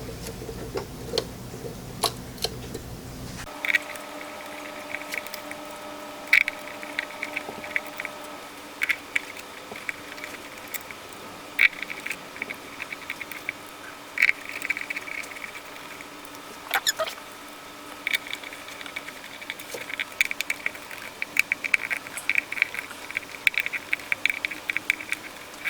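Scattered light metal clicks, taps and short scratchy rattles from hand work on a planer cutterhead as the knife blades are seated on their locating tabs and the screws are started. The clicks come thicker near the end, over a faint steady hum.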